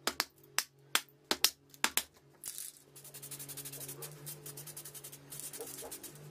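Metal bolts clicking sharply as they are set upright one by one on foil-faced insulation board, about eight clicks in the first two seconds. Then an aerosol spray-paint can hisses in two bursts, over steady background music.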